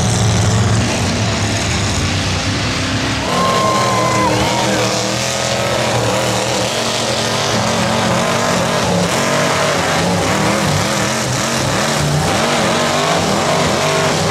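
Mega truck engines running hard; after about three seconds the sound changes to an engine revving up and down over and over.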